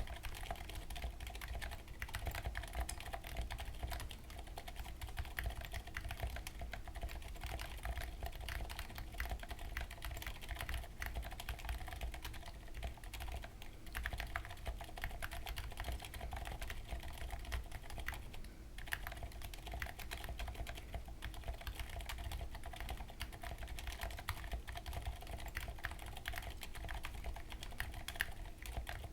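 Continuous fast typing on a mechanical keyboard with 78g Aliaz silent tactile switches and SA-profile keycaps, a dense stream of key clacks with two brief pauses, about 14 and 18 seconds in.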